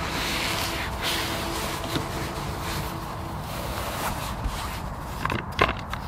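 Handling noise from camera gear: fabric and padding rustling and scraping as a telephoto lens in a camouflage cover is lifted out of a padded camera bag. A few sharp clicks and knocks come near the end.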